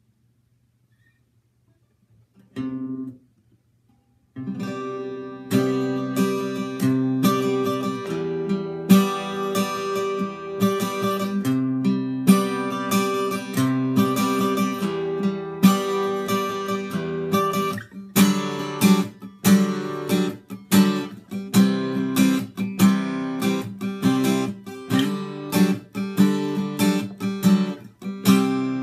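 Steel-string acoustic guitar with new D'Addario EXP19 strings, tuned to E standard, being strummed. One short chord sounds about two seconds in, then steady chord strumming begins about four seconds in. From about halfway it turns choppier, with separate strokes roughly twice a second.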